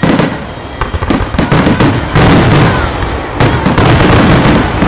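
Aerial firework shells in a grand finale bursting in quick succession. The bangs come close together at first, then run into a near-continuous barrage from about two seconds in.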